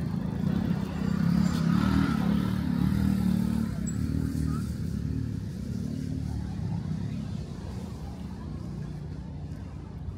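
A motor vehicle passing close on the street, its engine loudest about two seconds in, then fading away.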